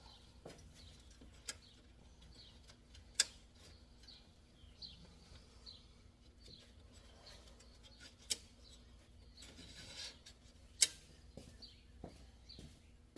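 Scattered sharp metal clicks and knocks from hand work on a riding lawnmower while its blade-engaging cable is taken off, the loudest about three seconds in and near the end. Faint bird chirps repeat throughout.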